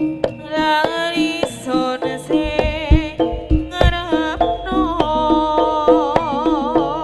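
Live Javanese jaranan gamelan music: kendang hand-drum strokes and deep gong strokes under a sustained lead melody with a wide wavering vibrato.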